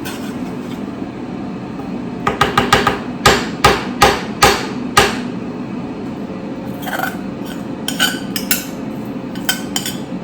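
Kitchen utensils and dishware knocking and clattering: a quick run of clicks, then five loud, sharp knocks about two a second, then lighter clicks near the end, over a steady low hum.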